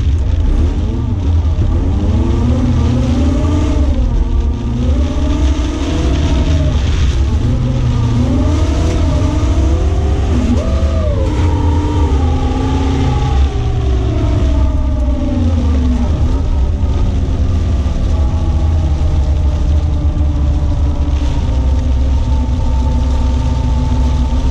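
BMW E36 318is's four-cylinder engine, heard from inside the cabin, driven hard: the revs climb and drop again and again through gear changes and corners, then hold steadier over the last several seconds.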